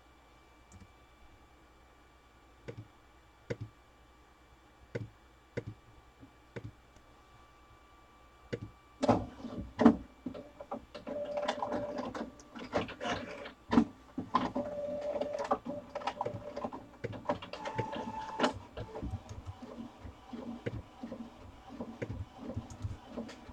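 A few scattered sharp clicks, then from about nine seconds a busier run of clicks, knocks and rustling with short whirring tones.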